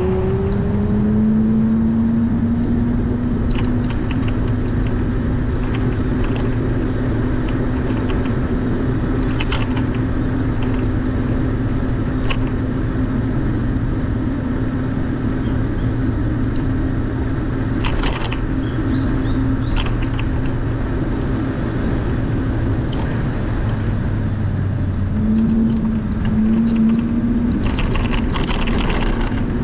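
Steady road rumble of the vehicle carrying the camera riding along a street, with a hum that rises in pitch right at the start as it picks up speed and then holds steady. A few short clicks or taps come through, and there is a brief lower, broken hum a few seconds before the end.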